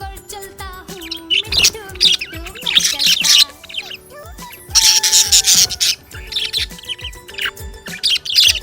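Budgerigar chirping and chattering in quick bursts, loudest in a long burst about five seconds in, over background music with a simple melody.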